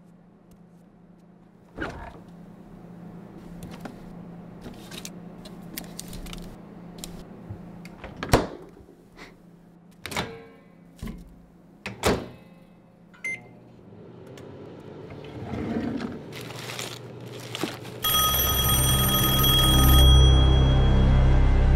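Kitchen handling noises: a string of clicks and knocks, among them the microwave door opening about ten seconds in. Near the end a loud ringing starts suddenly over a deep rumble, the high ringing lasting about two seconds.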